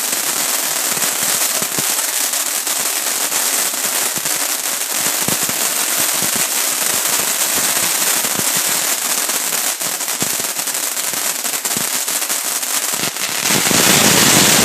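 Cutting Edge Fireworks ground fountain burning, a steady dense hiss full of fine crackles. Just before the end it suddenly grows louder and fuller as the fountain moves into a stronger phase.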